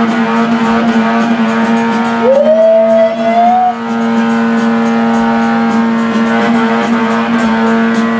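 A car engine held at steady high revs, with a short rising squeal about two seconds in.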